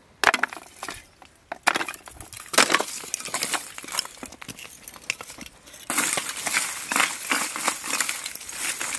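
Lumps of wood charcoal handled and dropped into a wooden crate, clinking and clattering against each other. A few separate knocks at first, then a denser run of clinks in the second half.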